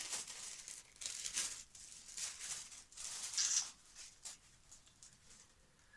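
Paper and packaging rustling and crinkling in short, irregular bursts as an item is handled and unwrapped, dying down over the last couple of seconds.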